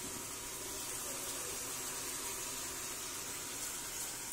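Steady hiss of meat sizzling in an aluminium pressure cooker on the stove; near the end water starts to pour into the pot from a plastic jug.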